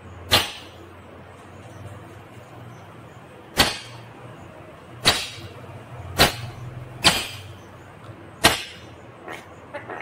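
Rose-ringed (Indian ringneck) parakeet giving six loud, sharp, short screeches spaced about a second or more apart, with softer chattering calls starting near the end.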